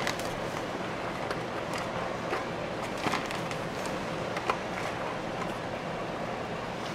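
Faint rustles and clicks of a plastic bag of mozzarella being handled over the lasagna pan, over a steady room hum.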